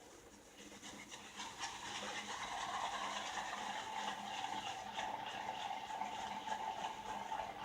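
Shaving brush working soap into a lather: a faint, steady wet swishing and squishing that starts about a second in and keeps going.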